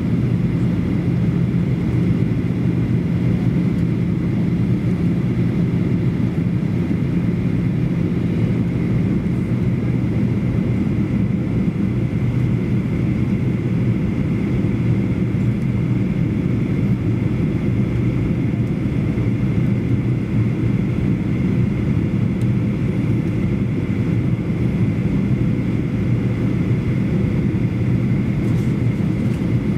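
Cabin noise inside a Boeing 737-800 in flight, heard from a rear seat: the steady low drone of the CFM56 jet engines and airflow, with a faint steady whine above it.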